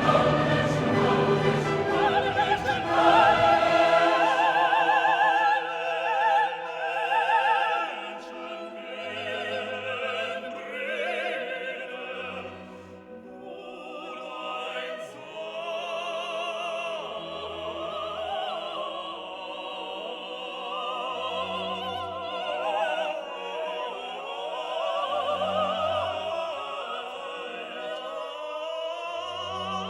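Classical music: an operatic singing voice with vibrato over an orchestra, fuller and louder in the first few seconds.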